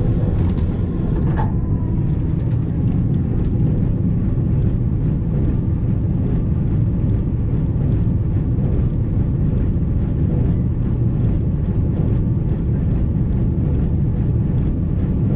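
Diesel locomotive running with a steady low rumble as it rolls along the track, with faint, evenly spaced clicks.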